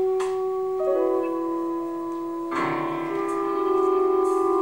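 Live experimental music accompaniment: long, steady held tones stack up into a chord, and a fuller chord comes in about two and a half seconds in, with one low note wavering near the end.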